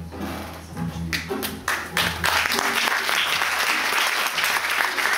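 Audience applause: a few scattered claps about a second in, swelling within a second into steady, dense clapping from a theatre crowd.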